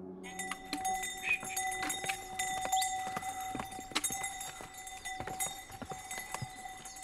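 Pack mules' hooves clopping on stone trail steps, an irregular run of sharp knocks, with a steady high-pitched tone behind them.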